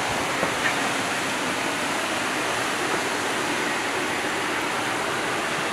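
Steady rushing of the Staubbach Falls waterfall falling close by, an even hiss of water and spray.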